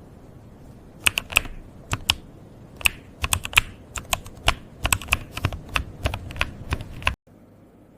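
Typing on a computer keyboard: irregular, quick keystroke clicks starting about a second in, cutting off suddenly near the end.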